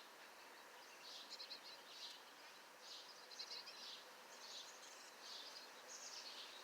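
Faint, high-pitched bird chirps coming in short bursts about once a second, some as quick runs of notes.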